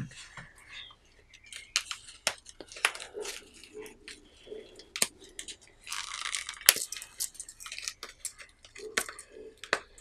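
Nylon multitool sheaths being handled on a workbench: fabric rustling with scattered sharp taps and clicks, and a short rasp about six seconds in.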